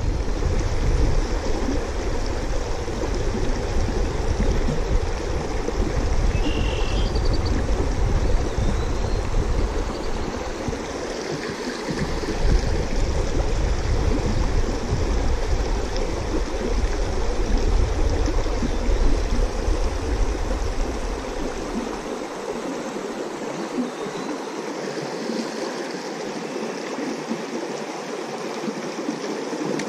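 Shallow creek water running over a rocky riffle: a steady rushing hiss, with a low rumble underneath that drops away about two-thirds of the way through.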